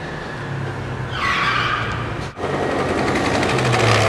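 Street traffic with a small motor scooter engine running close by: a steady low engine hum, with a louder hiss of traffic from about a second in. The sound cuts out for an instant a little past halfway.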